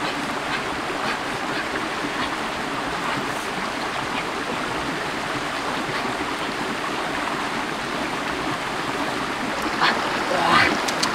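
Shallow rocky stream running over stones, a steady rush of water. Near the end a few short, sharper sounds rise over it.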